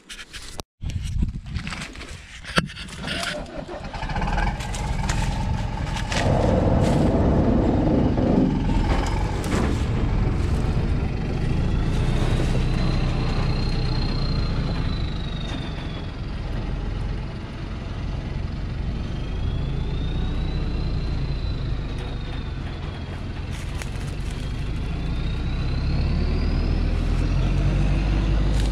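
Thaco Forland truck's diesel engine running under load as the truck, laden with acacia logs, pulls away along a muddy dirt track. The engine note grows louder near the end. A faint high whistle rises and falls three times over it.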